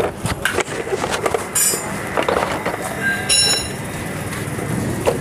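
Metal clinks and knocks of spanners and front-fork parts being handled, with a short high metallic ring about three seconds in.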